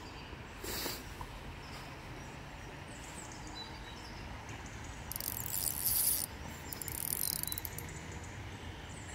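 River water running steadily, with a few short louder bursts of hiss, the longest about five to six seconds in.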